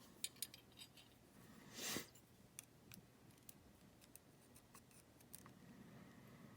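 Faint, sparse small clicks and taps, with a brief rustling scrape about two seconds in, from small lock parts of a gutted padlock being handled on the bench.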